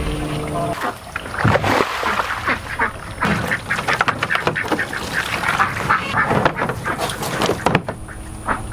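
Domestic ducks quacking loudly and repeatedly, many calls overlapping, growing fainter near the end.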